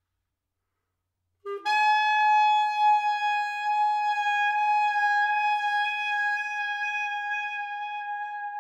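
Solo clarinet: after a silence of about a second and a half, a brief low note, then one long high note held loud and slowly getting quieter.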